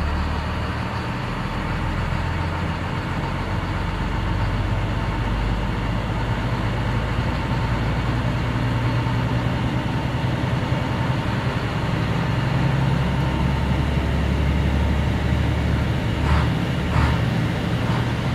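A 2010 Navistar MaxxForce DT inline-six diesel runs at raised idle for a parked DPF regeneration. Its engine speed climbs from about 1,200 to 1,600 rpm, and its steady note shifts partway through. Two short clicks sound near the end.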